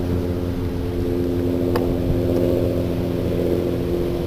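Bow-mounted electric trolling motor of a bass boat running steadily, a constant whirring hum, as it slowly moves the boat along the bank. A single sharp click about halfway through.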